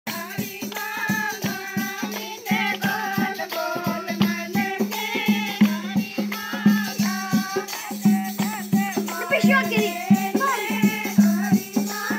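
Hindi devotional song (bhajan): a singer's voice over a steady beat with shaker-like rattle percussion.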